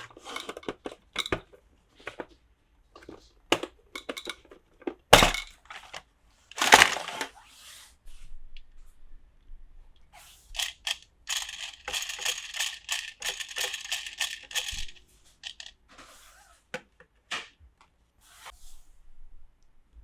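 Small hard plastic toy pieces and packaging being handled: a run of light clicks and taps, a sharp knock about five seconds in, and a steady scratchy rustle for several seconds in the middle.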